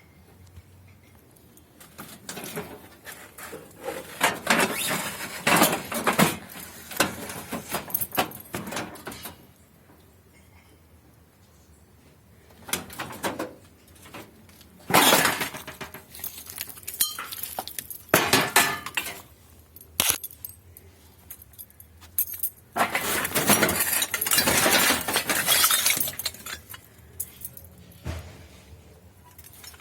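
Hard objects clinking and clattering as they are handled, in several bursts of rattling with short pauses between.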